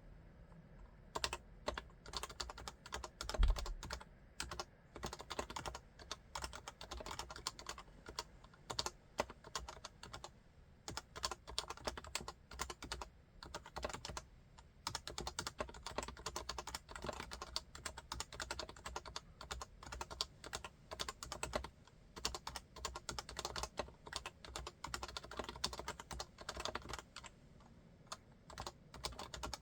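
Typing on an HHKB Classic keyboard with Topre electro-capacitive switches: a dense, clattery run of keystrokes starting about a second in, broken by a few short pauses, with one heavier stroke early on.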